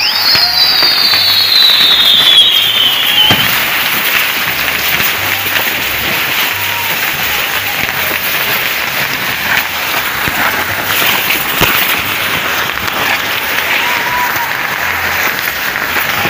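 Fireworks of a burning torito pyrotechnic frame spraying sparks: a continuous dense hiss and crackle. A falling whistle sounds over the first few seconds, and a single sharp crack comes about two-thirds of the way through.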